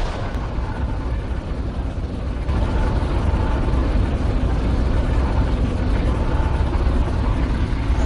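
Fan-made Godzilla monster sound effect: a long, dense, loud rumble heavy in the low end, which grows louder about two and a half seconds in.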